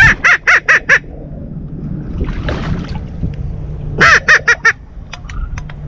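Blue-winged teal calling: a quick run of four or five short, nasal quacks at the start and another about four seconds in, followed by a few thin, high peeps.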